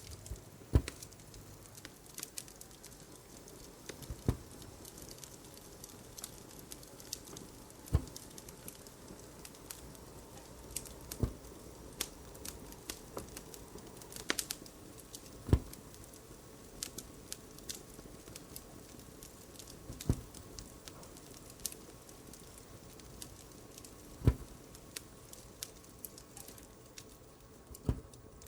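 Wood fire crackling steadily with fine pops, while needlepoint is stitched by hand, giving a sharper tap about every four seconds as the needle is pushed through the canvas and the thread is pulled.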